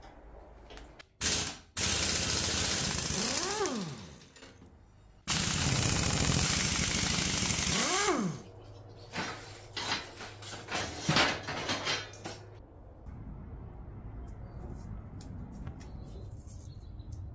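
Cordless drill-driver with a socket running in two bursts of a few seconds each, undoing rusted nuts and bolts on an old iron plow frame; each burst ends with a brief whine that rises and falls. After them comes a run of metal clicks and knocks.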